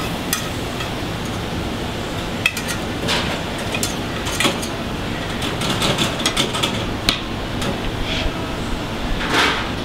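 A metal utensil clinking and scraping against a frying pan while serving out cooked meat and vegetables: scattered clicks and knocks over a steady kitchen hum, with a longer scrape near the end.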